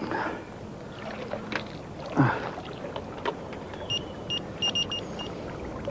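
Small water splashes and knocks as a freshly landed tench is unhooked and slipped into the net, with a louder thump about two seconds in. Several short high chirps sound near the end.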